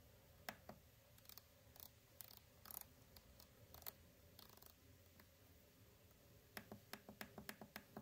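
Faint clicks of a rotary encoder knob being turned through its detents by hand, scattered at first, then a quick run of clicks near the end.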